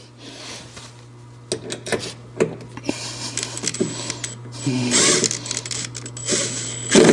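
Cordless driver running in several short bursts as it drives screws into a steel door hinge, with sharp clicks of the bit and screw between the bursts.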